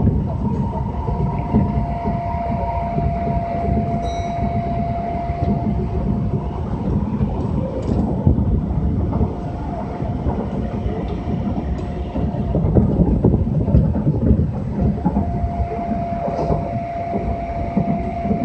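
Kintetsu Minami-Osaka Line local train running between stations, heard from inside the car: a steady rumble of wheels on rail, with a thin steady whine that holds for several seconds early on and returns for the last few seconds.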